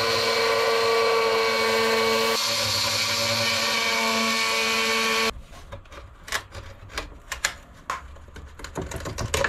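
Fein oscillating multi-tool fitted with a new blade, buzzing steadily as it plunge-cuts an opening in a veneered wooden panel. It stops abruptly about five seconds in and is followed by light knocks and clicks.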